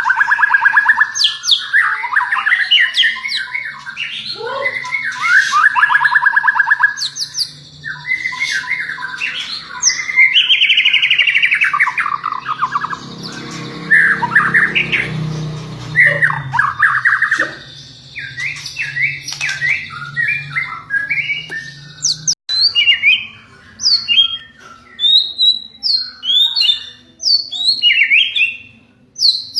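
White-rumped shama (murai batu) singing a long, varied song of rapid trills, whistles and chattering phrases. After an abrupt break about 22 seconds in, it gives shorter, sharper high chirps with pauses between them.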